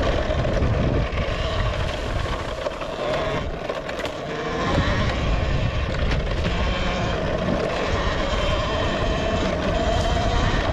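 Talaria Sting electric dirt bike riding along a dirt trail: a motor and drivetrain whine that wavers with speed over heavy wind buffeting and tyre rumble. It eases off about three seconds in and picks up again a second or so later.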